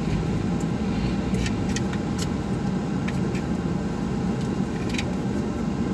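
Steady low rumble of a car idling, heard from inside the cabin, with a few light plastic clicks and taps as a suction-cup dashboard phone mount and its lever are handled.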